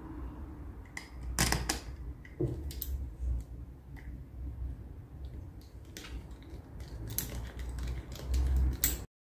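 Irregular small clicks and taps of metal Allen key bolts being placed and fitted by hand into the plastic bracket of a vacuum suction pad, with low handling rumble between them.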